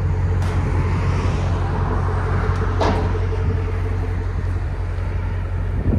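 2015 Lexus RC F's 5.0-litre V8 running with its Valvetronic Designs muffler valves closed: a steady, deep exhaust rumble. A sharp click comes about half a second in and a louder one near the three-second mark.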